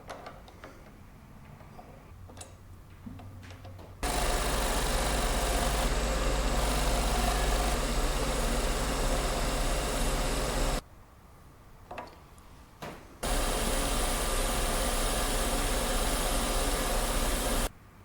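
Lathe running: a Schaublin 102 motor and spindle make a loud, steady machine hum. A few light clicks come first, then the lathe starts about four seconds in. It stops for about two seconds around eleven seconds in, then runs again until just before the end.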